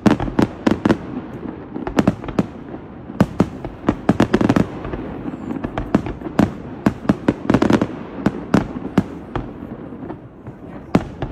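Aerial fireworks bursting overhead: dozens of sharp bangs in quick, uneven succession, some overlapping.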